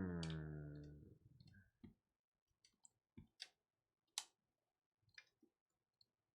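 A few sparse, irregular clicks, likely a computer mouse being clicked while the random is run, after a tone that falls in pitch and fades out in the first second.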